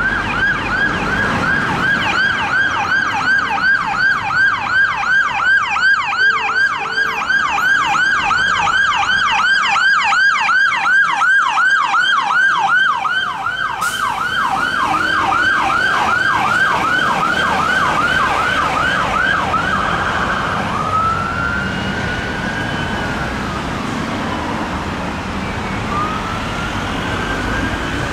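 Siren of a Volvo FE Emergency One/Magirus turntable ladder fire engine on an emergency run, yelping fast at about three sweeps a second as the truck passes. About twenty seconds in it switches to a slow rising and falling wail, fainter as the truck moves away.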